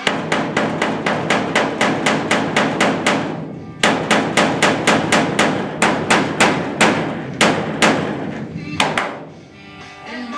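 A hammer beating on the sheet metal of a pickup bed's wheel well in quick blows, about six a second, for some three seconds. After a brief pause a second run of blows follows, ending about nine seconds in.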